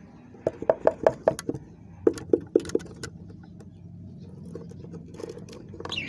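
Quick light taps and knocks in a wooden budgerigar nest box, in two runs of about five or six about a second apart, with a few softer clicks near the end, over a low steady hum.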